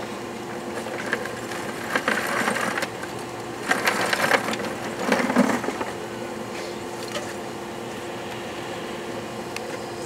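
Coke poured from a bucket rattling into the top of a small blast furnace in three short bursts in the first half, over the steady hum of the furnace's small air blower.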